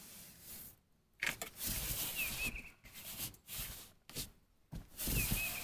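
A hand rubbing and pressing over application tape, sticking a gloss black emblem onto a truck's door panel: scratchy rubbing strokes with short pauses between them.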